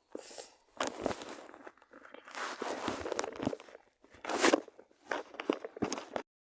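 Footsteps crunching over rough ground, with irregular rustling and knocks, which cut off suddenly near the end.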